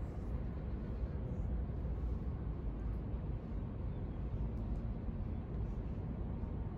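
Steady low outdoor background rumble with no distinct event standing out.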